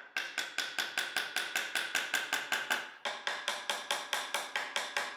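Small metal-headed hammer tapping rapidly on the end of a dovetailed wooden board, about six even, ringing taps a second, with a short break about three seconds in.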